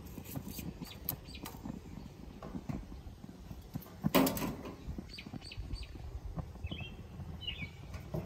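Metal tongs knocking and clicking against cast-iron gas grill grates, with one louder clank about four seconds in. A few short bird chirps sound in the second half.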